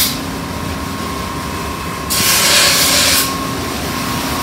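A knife blade pressed against a spinning motor-driven sharpening wheel gives a hissing grind for about a second near the middle. The wheel's motor hums steadily throughout.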